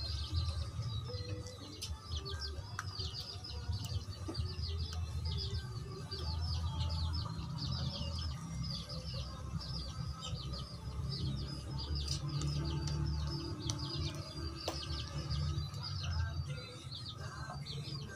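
Background music with many quick bird chirps running over it throughout.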